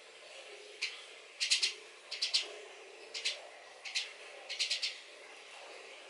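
Young starling giving short, harsh, high-pitched begging calls, about six bursts, some in quick runs of two or three, as it begs for the food held out to it.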